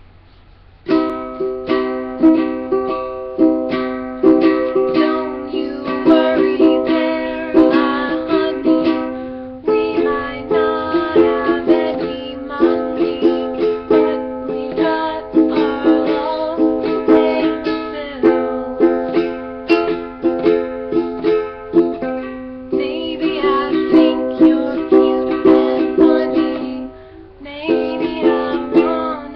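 Ukulele strummed in repeated chords by a self-described beginner, starting about a second in, with a short break near the end.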